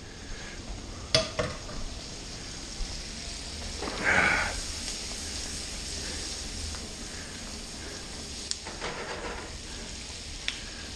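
Sliced onions sizzling steadily as they sauté in butter in a frying pan. A sharp clink about a second in as a spoon is dropped in the sink, and a few small knocks as the pan is handled.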